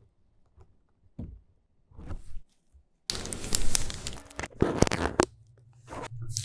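Snack packaging being torn open and crinkled, a long ripping stretch a few seconds in, followed by a shorter burst.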